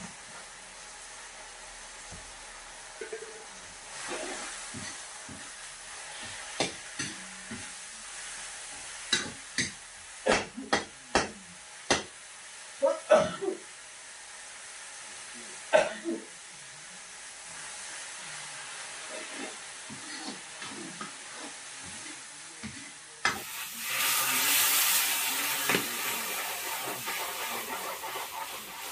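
A metal ladle clinks and scrapes in a wok of roselle leaves and fish frying with a faint sizzle. Near the end, water poured from a jug into the hot wok sets off a loud hissing sizzle that slowly eases.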